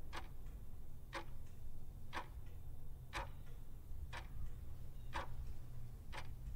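Clock ticking, one sharp tick about every second with a fainter tick between, over a low steady hum.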